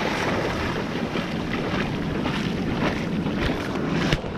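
Shallow surf washing up over the sand, with wind noise on the microphone. A couple of short knocks near the end.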